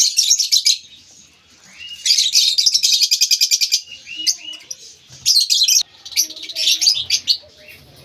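Lovebirds calling in shrill bursts of rapid chirps. The longest run of quick chirps comes about two seconds in, with shorter bursts later.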